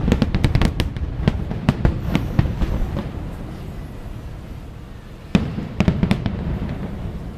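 Fireworks display: a quick run of sharp cracks and bangs over a low rumble that thins out after about three seconds, then a loud bang about five seconds in followed by a few more cracks.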